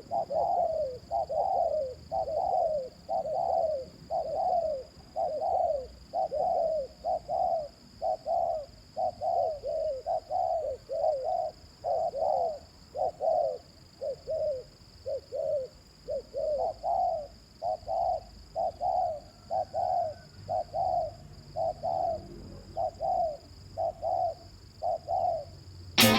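Spotted dove cooing in a fast, unbroken run of short coos, about three every two seconds: the dense, rapid 'thúc gù' cooing that Vietnamese dove keepers prize.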